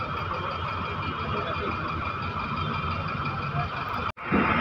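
Bus engine and road noise heard from inside the moving bus: a steady drone with a low rumble. It cuts out for an instant near the end.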